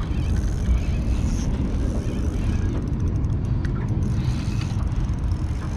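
Wind buffeting the action camera's microphone, a steady low rumble with no distinct pitch, with a few faint ticks about three seconds in.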